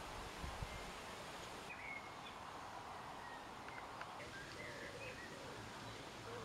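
Outdoor woodland ambience: a steady faint background hiss with a few brief, faint bird chirps, and a couple of soft low bumps just after the start.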